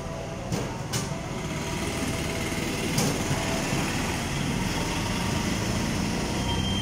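A small engine running steadily, with a few sharp clicks about half a second in, a second in, and three seconds in.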